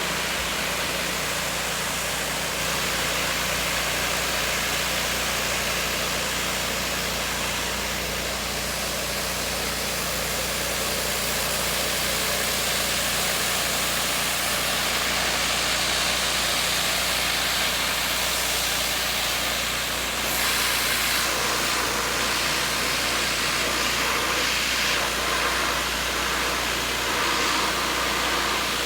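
Pressure washer running steadily, its high-pressure water jet spraying house siding to blast off green mold: a constant hiss of spray over a low, steady hum.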